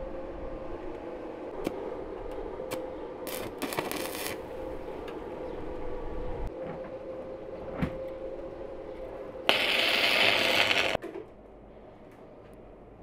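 Electric arc welding on a steel rebar frame: the arc crackles and sizzles over a faint steady hum, with a short high hiss about three seconds in and a loud hiss lasting about a second and a half near the end, before the sound drops to quiet room tone.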